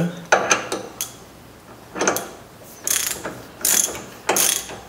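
Hand ratchet clicking as it turns the forcing screw of a tie rod end puller, in a series of short strokes under a second apart, tightening the puller to press the tie rod end stud out of the steering knuckle.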